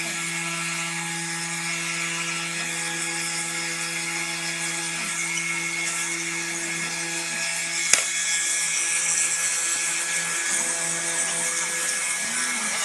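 Homemade CPC-RC55 CNC wood-carving router running: a steady spindle whine with the stepper motors driving the axes, and a single sharp click about eight seconds in.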